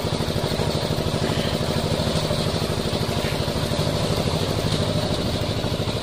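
Site concrete mixer running steadily, its engine throbbing fast and evenly while the drum turns, mixing a freshly loaded batch of concrete.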